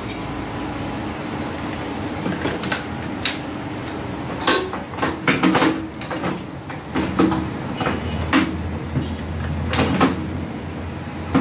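Irregular clicks and knocks of parts and tools being handled during work on a microwave's control board, over a steady low hum; a second, lower hum comes in about two-thirds of the way through.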